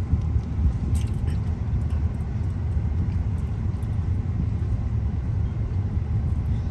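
Low, steady rumble of a car's engine and tyres heard from inside the cabin as it moves slowly in traffic, with a few light clicks or rattles about a second in.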